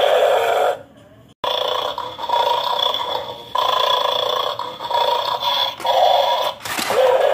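Toy bulldog's built-in speaker playing a loud dog-growl sound. It breaks off for a moment about a second in, then resumes in several long growls with short breaks between them.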